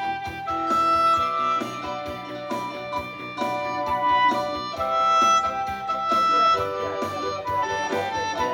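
Instrumental music: a melody of held notes, changing every half second to a second, over a steady accompaniment.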